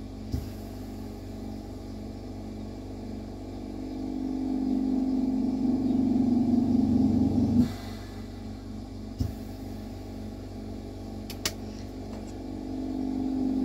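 Steady mechanical hum from a lampworking torch setup. Over it a low drone builds over a few seconds, drops off abruptly with a short puff about seven and a half seconds in, then builds again near the end. A few soft clicks are scattered through it.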